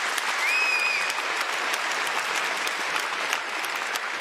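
Large audience applauding steadily, with one short whistle that rises and then holds about half a second in.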